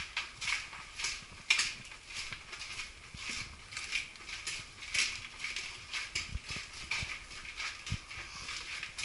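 Footsteps inside a round concrete tunnel, at a steady walking pace of about two steps a second, each step a short sharp scuff.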